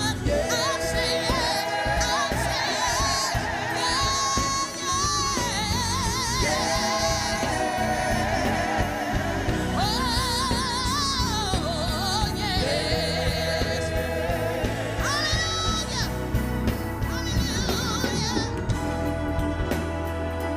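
Gospel singing: a voice holding long notes with wide vibrato over steady band accompaniment with a firm bass.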